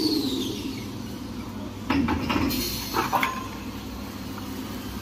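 Paper rewinding machine's drive dying away with a falling whine, then a few sharp metallic clanks and knocks, about two and three seconds in, with a short hiss between them, as the finished paper-towel log is released from the winding rollers onto the table.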